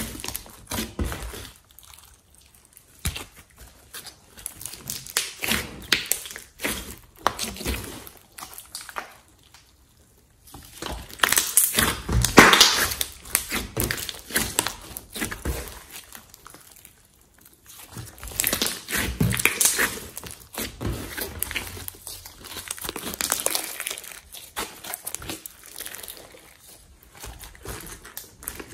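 Glossy slime being squeezed, stretched and kneaded by hand: sticky, wet clicking and crackling in irregular bursts, with a few brief quieter pauses and the loudest burst a little under halfway through.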